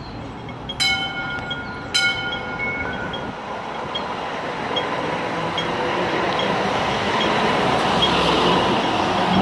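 Hong Kong Light Rail Phase 1 train: a bell-like warning gong is struck twice, about a second apart, over faint regular ticking. Then the train's running noise builds steadily as it gets under way.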